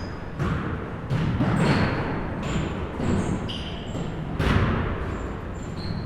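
Basketballs bouncing on a gym floor, an irregular run of thuds with the loudest about four and a half seconds in, and short high squeaks in between.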